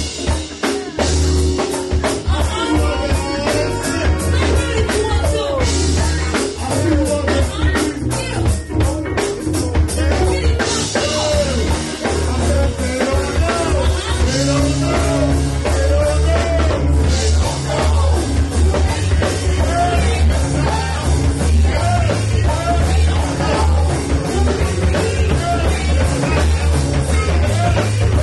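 Live band performing: several vocalists singing into microphones over electric guitar and drum kit.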